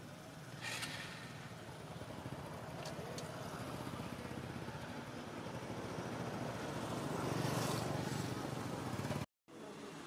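A motor vehicle running in the distance, a steady rumble that grows louder over several seconds and peaks near the end. It cuts out abruptly for a moment about nine seconds in.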